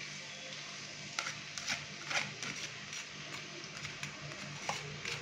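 Wooden spoon tapping and scraping chopped onion out of a plastic bowl into an aluminium kadai: a string of light, irregular clicks over a faint steady hiss.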